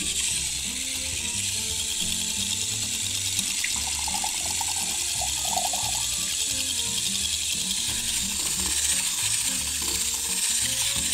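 Wire whisk stirring egg yolks and goat milk together in a bowl, a steady rapid scraping and clicking, with soft background music beneath.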